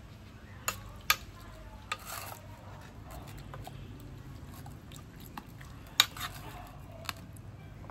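A metal spoon stirring a wet sauce mixture in a stainless steel pot, clinking sharply against the pot several times; the loudest clink comes about six seconds in.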